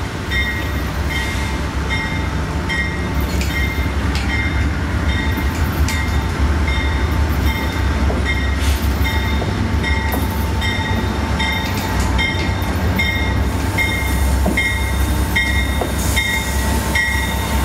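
Amtrak GE P42DC diesel locomotives rolling into a station stop: a steady low engine rumble, with the locomotive bell ringing evenly about three strokes every two seconds. A thin steady whine grows louder near the end as the train draws alongside.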